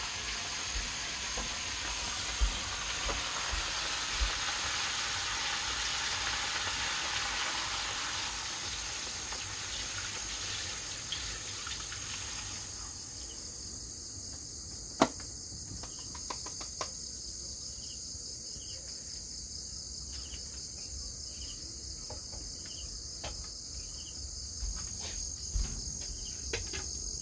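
Food frying in hot oil in a wok, a steady sizzle that cuts off abruptly about halfway through. Under it and after it, crickets chirr on one steady high note, with a few clinks and knocks of utensils against the pan in the second half.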